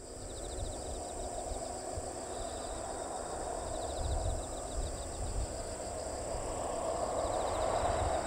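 Insects chirping in the grass: a steady high-pitched buzz with short trills repeating every second or two. Underneath runs a low rumble and hiss from the taxiing Boeing 737-800's jet engines, growing a little louder near the end.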